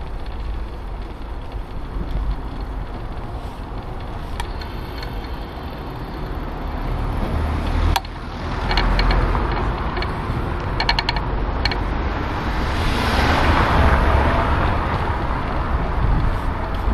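Riding noise of a bicycle over brick paving: a steady low wind rumble on the camera microphone with tyre noise and rattle. A quick run of rattling clicks comes about eleven seconds in, and the noise swells a little later.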